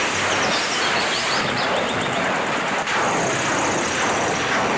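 Truck-mounted multiple rocket launcher firing a salvo: a steady, loud roar of rockets leaving the launch tubes.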